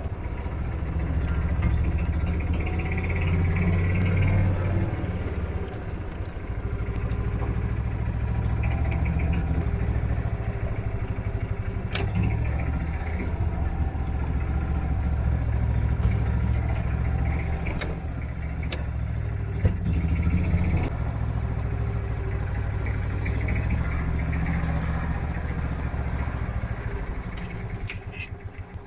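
A car driving, with a steady low rumble of engine and road noise and a few sharp clicks. The rumble dies away near the end.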